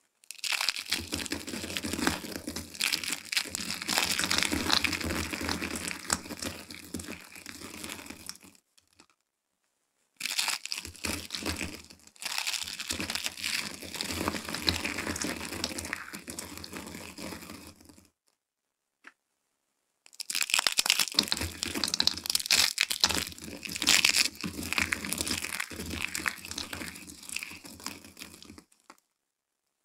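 Dry soap crushed by hand: thin stacked soap plates and curled soap shavings crunching and crackling in a dense run of tiny snaps. The crackling comes in three spells separated by short silences.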